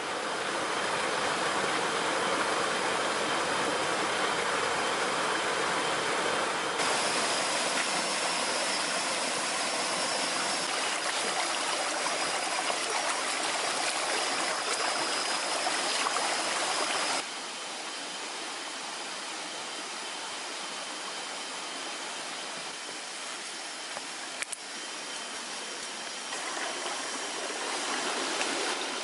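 Small rocky forest stream flowing and splashing over stones, a steady wash of water noise. It changes abruptly twice, dropping to a quieter stretch of water a little past the middle.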